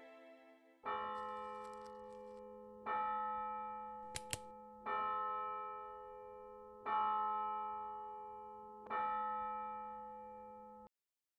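Church bell tolling five times, about two seconds apart, each stroke ringing and fading over a steady low hum. The ringing cuts off suddenly near the end, and two short clicks come about four seconds in.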